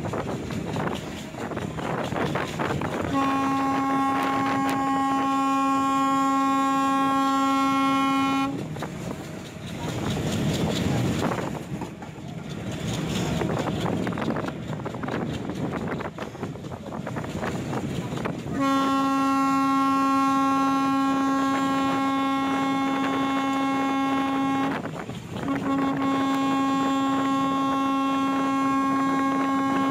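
A train horn sounds three long, steady blasts, each five to six seconds long, the last two split by a brief break. Between the blasts, the rumble of the moving train and wind fill the gaps.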